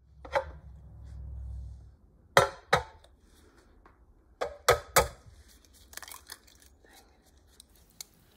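An egg knocked on the rim of a glass bowl and its shell broken open by gloved hands: a run of sharp taps and clicks, three close together about four and a half seconds in, then softer crackling of shell. A low rumble comes first.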